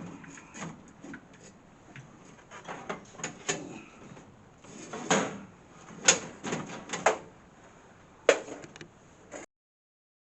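Irregular clicks, knocks and clunks with some scraping, as a bottle tray is pulled out of an AMS vending machine cabinet. The sound cuts off suddenly about a second before the end.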